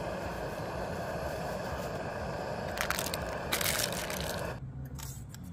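Small gas canister camping stove burning with a steady hiss under a pot of hot water, with two short crackly rustles about three seconds in. The burner sound cuts off suddenly near the end.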